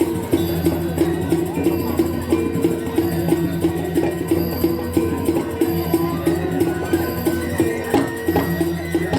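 Balinese gamelan playing: metallophones strike a quick, even run of repeated notes, about three a second, over a steady low drone.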